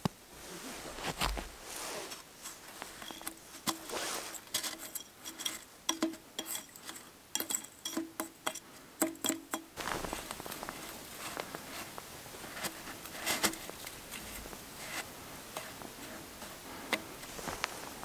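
Snow being scooped by hand and packed into the funnel on top of a stainless-steel samovar, filling it with snow in place of water: crunching and scraping snow with short taps and clinks on the steel. The clinks come thickest in the first half; after that it is mostly the soft crunch of snow being pressed in.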